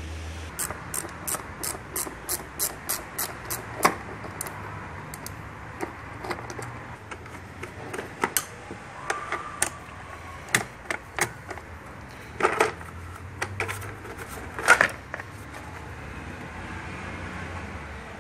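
Hand tools working on metal engine parts during disassembly of a diesel engine's front end: a run of about ten regular sharp clicks, roughly three a second, in the first few seconds, then scattered clicks and a few louder metallic knocks.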